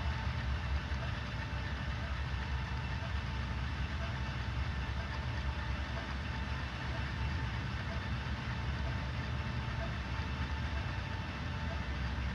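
Steady low mechanical hum and rumble from a six-axis hexapod motion-simulator platform running, with a few faint steady tones above it.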